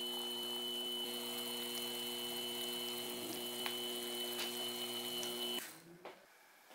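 Small benchtop machine spindle running steadily with a hum and a high whine while a twist drill bores into a small metal part held in a vise, with a few light ticks. The sound cuts off suddenly about five and a half seconds in.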